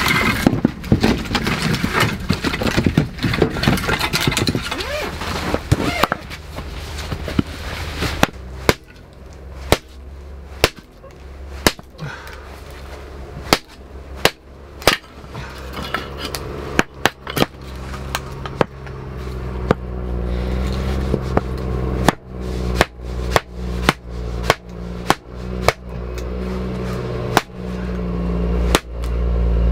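Firewood being split on a larger log used as a chopping block: a series of sharp wooden knocks, spaced out at first and coming faster in the last several seconds.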